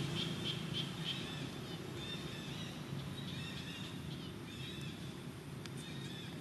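Birds chirping in short, repeated arched calls over a steady low hum.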